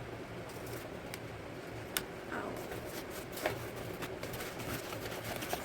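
Packaging being handled and unwrapped, rustling, with a few sharp clicks and taps, the clearest about two seconds in and again about a second and a half later.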